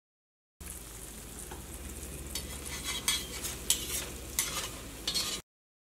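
Rice-and-flour vada batter balls deep-frying in hot oil with a steady sizzle, starting about half a second in. From about two seconds in, a slotted metal spatula stirs and turns them, adding several sharp scraping strokes against the pan, before the sound cuts off abruptly near the end.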